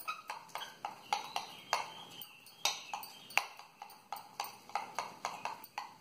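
Steel spoon clinking and scraping against a small glass bowl while stirring a sticky mix of peanut butter, honey and chopped dry fruits, about three clinks a second.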